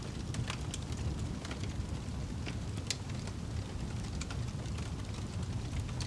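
Wood fire in a fireplace crackling, with sharp irregular pops, several a second, over a low steady rumble.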